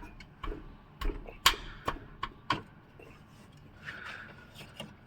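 A 14 mm spanner clinking and knocking on the oil-sump drain bolt as it is loosened: a handful of sharp metallic clicks, the loudest about one and a half seconds in.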